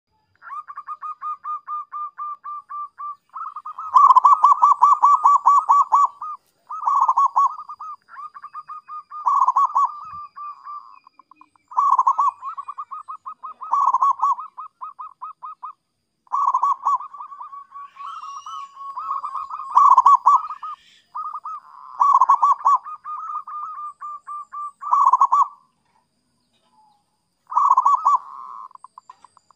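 Zebra dove (perkutut) song: repeated phrases of rapid staccato cooing notes, each phrase a quick run lasting one to two seconds. Loud phrases alternate with softer ones, with short pauses between them.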